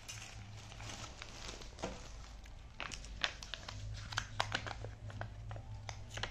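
Plastic crinkling and rustling as a sealed plastic takeaway tub is pulled from a thin plastic carry bag, then fingernails picking and scratching at the tub's sealed lid edge, with many small sharp crackles and clicks.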